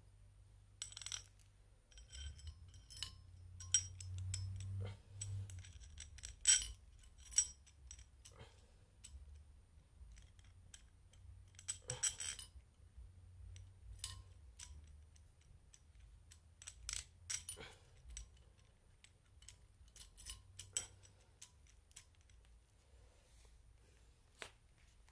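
Small metal parts clinking and tapping as they are handled, in irregular scattered strikes, the sharpest about six and twelve seconds in, over a faint steady low hum.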